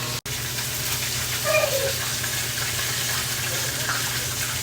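Chicken pieces deep-frying in hot oil, a steady sizzle, with a short falling vocal squeal about one and a half seconds in. The sound cuts out for an instant just after the start.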